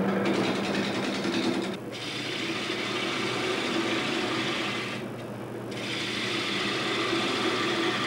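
A lathe runs with a steady hum while a turning tool cuts the spinning white workpiece, making a hissing scrape. The cut breaks off briefly about two seconds in and again for under a second around the five-second mark.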